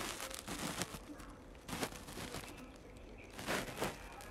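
Faint rustling and handling noise of a phone held close, with a brief faint murmur of a woman's voice.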